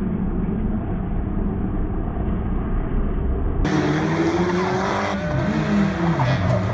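Rally car engine running at high revs as the car slides sideways through a hairpin with its driven tyres spinning. About three and a half seconds in, the sound turns suddenly brighter and the engine note rises and falls with repeated blips of the throttle.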